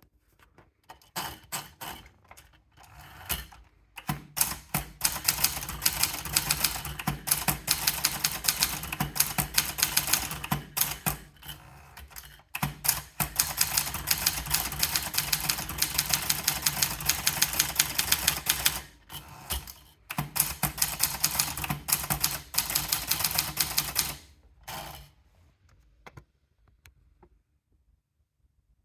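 Triumph Tippa portable manual typewriter being typed on fast, its keys and typebars clattering in rapid strokes. The typing comes in three long runs with short pauses between them and stops a few seconds before the end.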